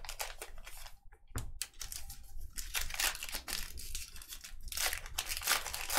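Baseball card pack wrapper being torn open and crinkled: a run of short, irregular rips and rustles, with a brief pause about a second in.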